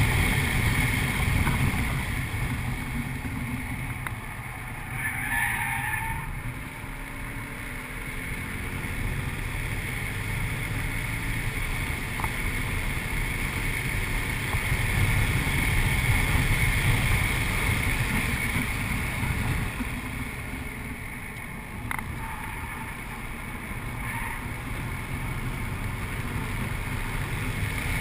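In-cabin sound of a 2008 Audi RS4's 4.2-litre V8 being driven hard on track, with road and wind roar. The engine swells and eases with the throttle: loud near the start, dipping a few seconds in, building again towards the middle, then falling away before steadying.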